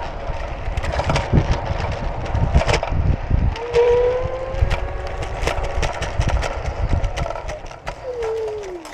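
Wind buffeting the microphone with a low rumble, under a faint engine whine that rises slowly in pitch and then falls near the end, with scattered clicks and knocks.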